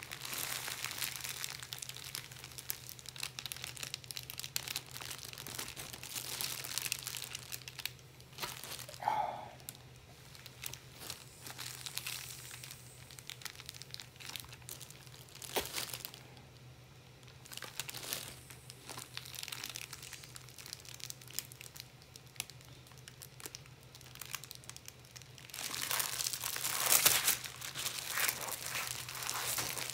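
Thin plastic bag crinkling and rustling around a paper-wrapped fish as the air is drawn out of it and the bag is handled. The crinkling grows louder and denser near the end as the slack bag is twisted closed.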